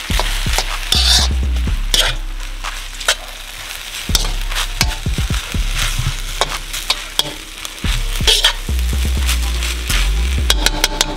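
Chicken fried rice sizzling in a wok over a medium-high flame while a metal spoon stirs and tosses it. Frequent sharp clicks and scrapes of the spoon on the wok sound over the steady frying hiss.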